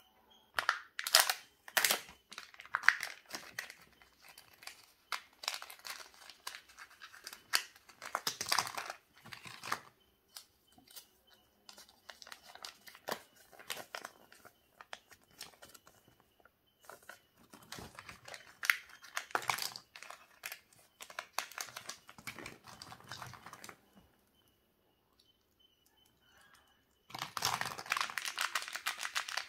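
Kinder Joy egg being unwrapped and opened by hand: plastic wrapping crinkling and tearing, the plastic capsule clicking, and a paper leaflet rustling as it is unfolded. It comes in irregular bursts with short quiet gaps, and a dense stretch of crinkling near the end.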